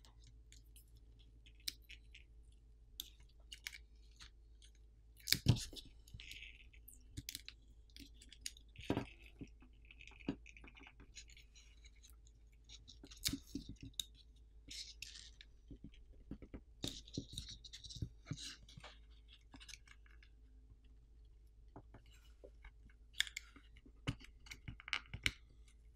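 Fingernails picking at and peeling copper foil tape and adhesive pull tabs off a phone's metal midframe. The sound is scattered faint clicks, scratches and short crinkling rustles, a few seconds apart.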